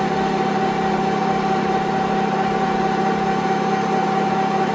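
Bernardo Profi 550 WQV mini metal lathe running at its top speed of about 2000 RPM. Its 750-watt motor and headstock give a steady whine with a few constant tones.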